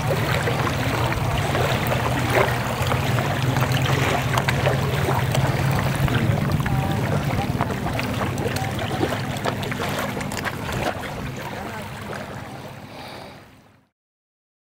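A motor running steadily under wind noise, fading out near the end.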